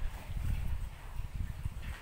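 A sow in a farrowing crate grunting low and irregularly.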